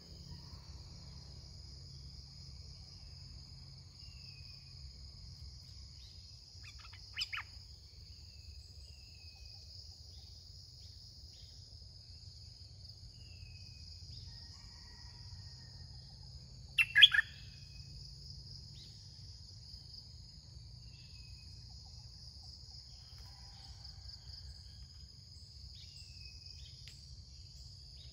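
Red-whiskered bulbul calling twice in short loud bursts, the second the louder, over a steady high-pitched insect drone, with faint scattered bird chirps in between.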